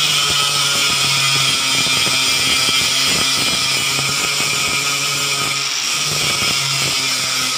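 Enka Slim (LY-S1004) angle grinder running under load, its disc grinding a weld bead flat: a steady motor whine mixed with a harsh, hissing grind of abrasive on metal.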